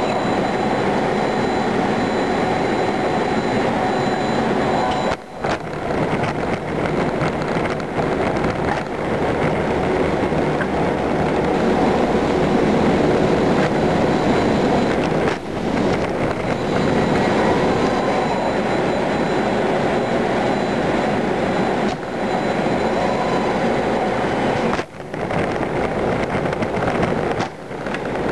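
Steady, dense machinery noise from a robotic workcell, a continuous rumble and whir of the robot arms and pallet conveyor. It drops out briefly about six times.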